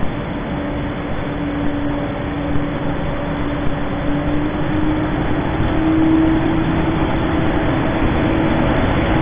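EP09 electric locomotive running as it sets off, a steady mechanical hum over noise with one held tone that rises a little and then eases, getting slightly louder.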